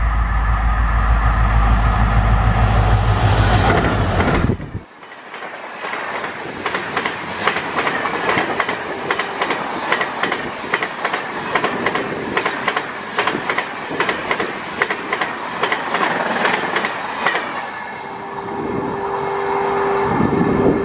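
Diesel locomotive rumbling heavily as it passes, cutting off abruptly about four and a half seconds in. Then passenger coaches pass with a rapid run of clickety-clack wheel clicks over the rail joints. Near the end a steady, held tone sets in.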